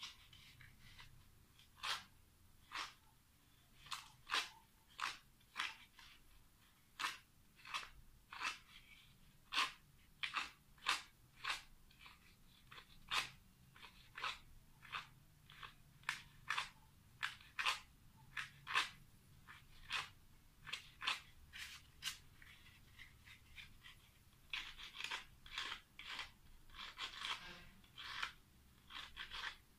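Sandpaper rubbed over the copper commutator of a small motor's armature in short scratchy strokes, about one or two a second and closer together near the end.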